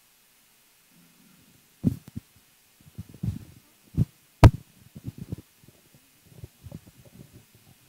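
Irregular low thumps and knocks starting about two seconds in, a few of them sharp.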